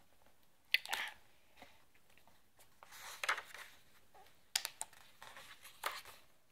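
A hardcover picture book being opened and its pages turned: a few short paper rustles and taps from the cover and pages.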